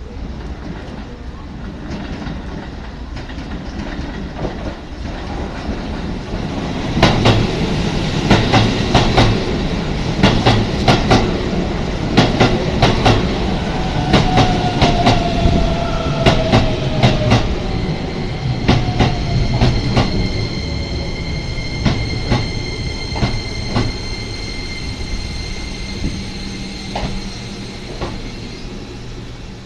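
Keisei 3000-series electric train pulling into a station. A rising rumble as it approaches, then a rapid run of wheel clicks over rail joints and points as the cars pass, giving way to a steady high whine as the train slows.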